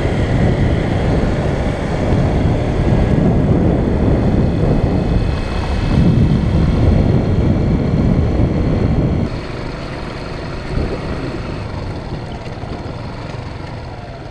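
Motorcycle riding along a road at speed: its engine running under heavy wind rush on the microphone. About nine seconds in the noise drops suddenly to a quieter, slower ride.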